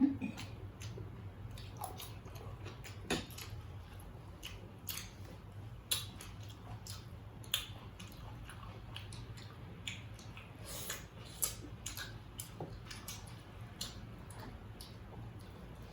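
People chewing and eating a meal, with scattered light clicks and clinks of cutlery and dishes, over a low steady hum.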